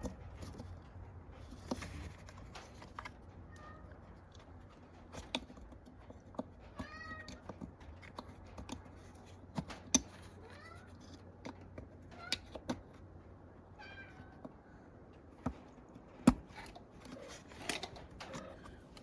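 A cat meowing several times, short rising-and-falling calls, among sharp scattered clicks and taps of hand tools at work.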